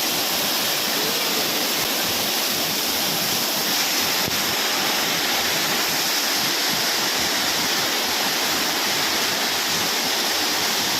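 Waterfall's water falling, a steady, unbroken rushing.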